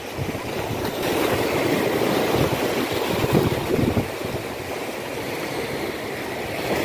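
Wind rushing over the microphone and small waves washing and splashing against the rocks of a stone breakwater: an even, shifting noise that swells slightly about a second in.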